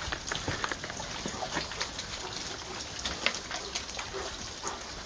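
Water dripping and trickling off a rock overhang after heavy rain, many drops splattering irregularly on rock and leaf litter.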